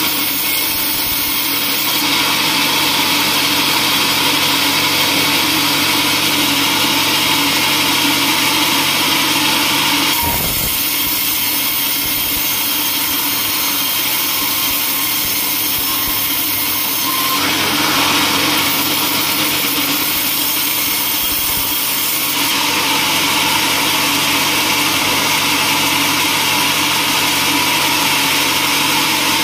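Band sawmill running and sawing a teak log into boards. The machine noise stays steady but changes in tone several times.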